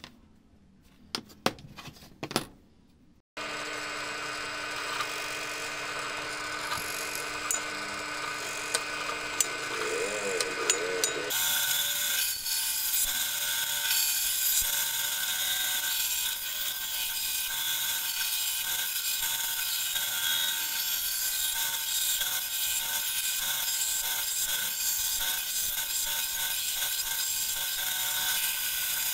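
A few light knocks of wooden blocks being handled, then a benchtop band saw running steadily from about three seconds in. From about eleven seconds in it is cutting 15 mm teak around a marked circle to make a round wheel blank, a louder, hissing sawing noise with small clicks as offcuts fall away.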